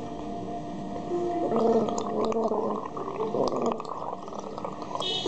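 A young boy gargling a liquid in his throat, bubbling on and off, to soothe an infected throat.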